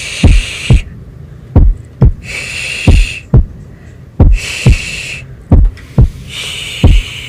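Slow heartbeat sound, a steady lub-dub double thump repeating about every 1.3 seconds, with drawn-out 'shh' shushing about every two seconds, as in soothing a baby.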